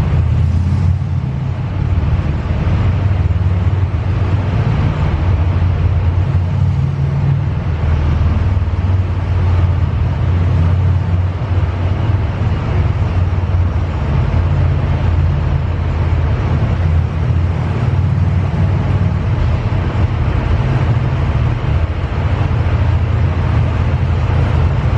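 Car driving along, heard from inside the cabin: a steady low road and engine rumble with an even hiss of tyre and wind noise above it.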